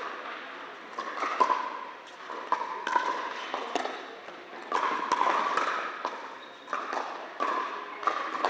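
Pickleball paddles striking a hard plastic pickleball during a rally: a string of sharp pops, one every half second to a second, over a steady background din.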